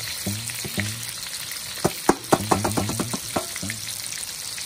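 Hot oil in a wok sizzling steadily around sliced lemongrass, shallots, garlic and bird's-eye chillies as the spice base fries, with frequent sharp spits and pops. The pops are thickest about two seconds in.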